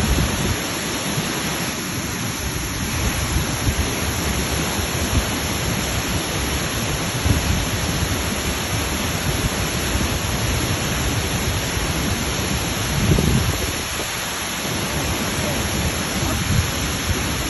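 Waterfall: steady rushing water with a deep, rumbling low end that swells slightly now and then.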